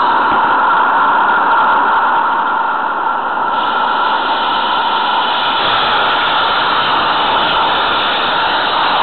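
Steady rushing running noise of a 16 mm scale garden railway train moving along its track, heard from on board the train. Its tone shifts slightly about three and a half seconds in.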